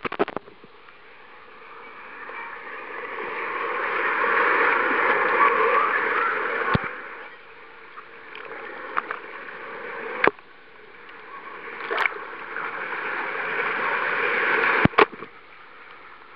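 Water sloshing and gurgling in two long swells that rise and fall, with a few sharp clicks between them.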